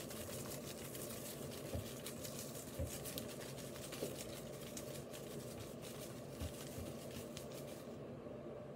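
Faint rustling and crinkling of a paper slip drawn from a hat and unfolded by hand, with a few soft knocks, dying away near the end.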